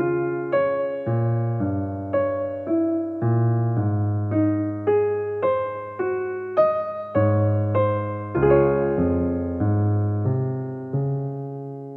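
Soft solo piano music, notes struck about twice a second, ending on a chord that rings out and fades near the end.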